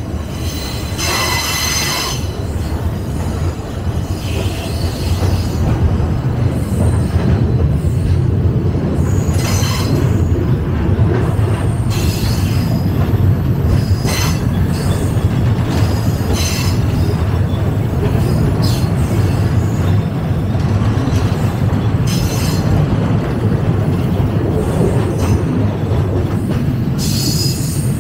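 Passenger train running on the track: a steady low rumble of the wheels on the rails that swells over the first few seconds. Short high-pitched wheel squeals break in every few seconds, about seven times.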